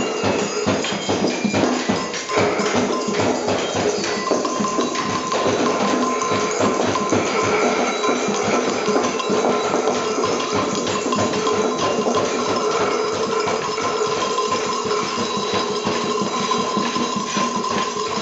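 Many people at once shaking and tapping small hand-held percussion, such as rattles, shakers, sticks and a triangle, in a dense, loose clatter. Steady held tones sound under it from a few seconds in.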